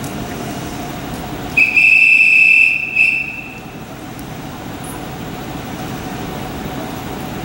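An approaching electric train's horn: one steady, high-pitched blast about a second and a half in, lasting a little over a second with a brief second push at its end, over a steady rumble of rail traffic.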